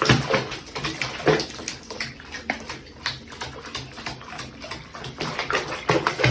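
Water splashing and sloshing in a bathtub, in irregular bursts.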